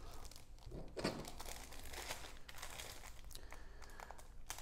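Clear plastic bags around plastic model-kit sprues crinkling faintly as they are handled, with a brief louder rustle about a second in.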